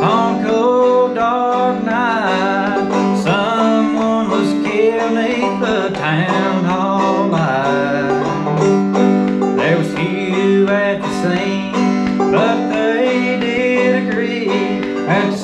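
Five-string banjo played clawhammer style in open G tuning, picking out the melody as an instrumental break.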